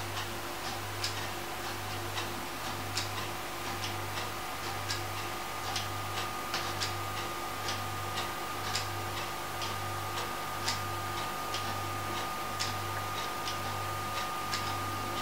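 Wooden gear pendulum clock ticking: the anchor escapement clicks against the wooden escape wheel about twice a second, the ticks uneven in loudness. A low hum runs underneath.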